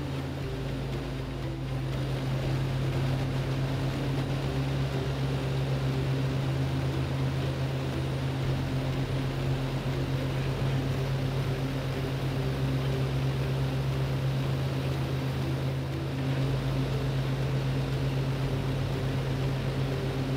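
Portable air compressor's engine idling steadily at about 1300 rpm, running unloaded with no air demand, a steady low hum.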